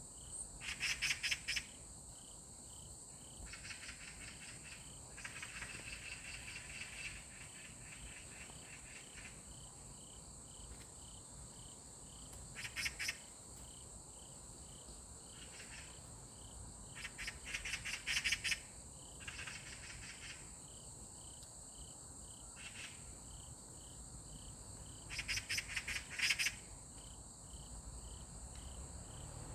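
Insects, crickets among them: a steady high-pitched drone, a regular beat of soft chirps, and every few seconds a louder short burst of rapid clicking trills.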